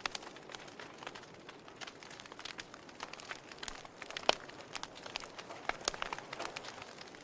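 Burning wood crackling and popping: irregular sharp snaps over a soft hiss of flame, one louder pop about four seconds in.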